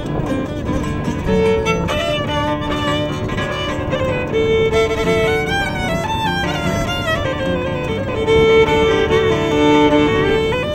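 Violin playing a melody of long held notes and sliding phrases, over acoustic guitar accompaniment.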